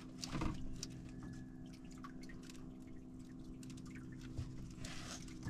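A faint steady hum with light water drips and small splashes around a small outrigger fishing boat drifting on calm sea.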